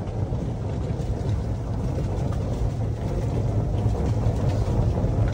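Golf cart driving along a paved path: a steady low rumble of its tyres and running gear.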